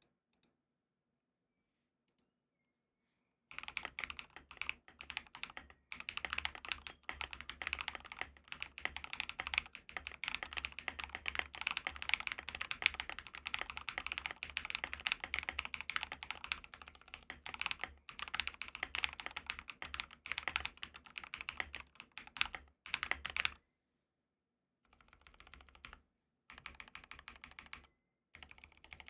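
Fast typing on a GMMK Pro custom mechanical keyboard with lubed Akko CS Matcha Green switches on an aluminium plate and PBT keycaps, a dense run of key clacks. It starts after a few seconds of silence, breaks off briefly past the two-thirds mark, and continues more softly and then in short bursts.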